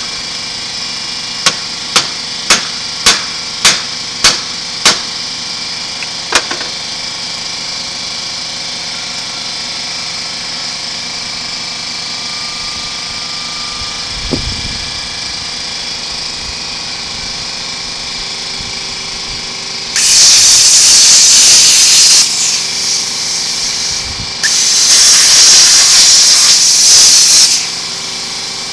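About eight sharp, evenly spaced metal strikes in the first six seconds over a steady background hum. Then an abrasive chop saw cuts into the steel shell of a scroll compressor in two loud, hissing bursts of about two and three seconds, near the end.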